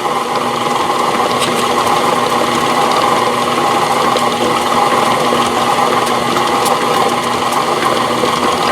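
Electric mixer motor running steadily, beating thick oatmeal cookie dough as oats are worked in.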